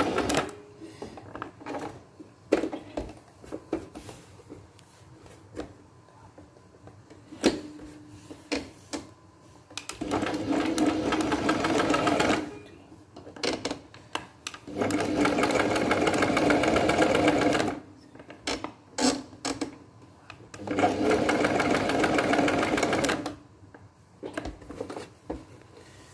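Brother PX-110 electric sewing machine stitching zigzag in three short runs of about two to three seconds each, its motor and needle mechanism running steadily. Between the runs it stops, leaving scattered clicks and taps of the fabric and machine being handled.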